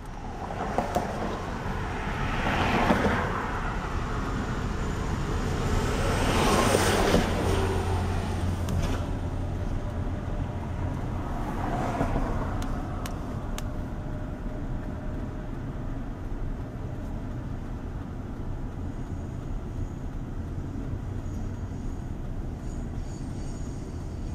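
Road traffic heard from inside a stationary vehicle over a steady low engine hum: three vehicles swish past in the first half, rising and fading away, then only the hum and distant traffic remain.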